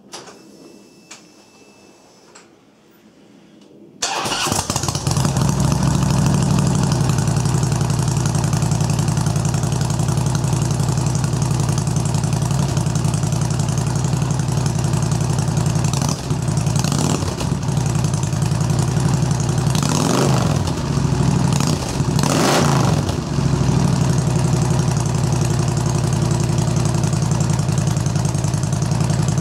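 Harley-Davidson Road Glide Ultra's Twin Cam 103 V-twin, breathing through Vance & Hines true dual headers and slip-on mufflers, starts about four seconds in and settles into a loud, steady idle. Past the middle it is revved in several short throttle blips that rise and fall in pitch, then it returns to idle.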